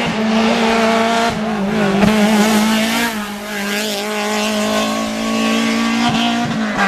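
Rally car engines running hard at high revs on a tarmac stage, with a steady strained drone through the bends.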